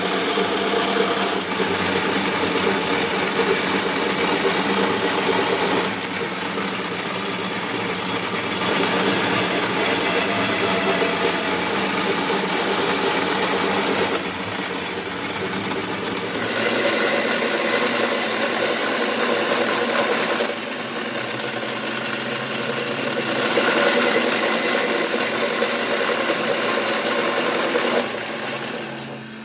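Metal lathe running, its tool cutting a screw thread along a steel bar. The motor hum holds steady while the cutting noise steps louder and softer every few seconds.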